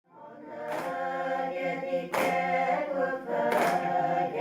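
A group of voices singing a Naga folk song in chorus, fading in after a brief silence. The singers hold long, steady notes, with a sharp rhythmic accent about every second and a half.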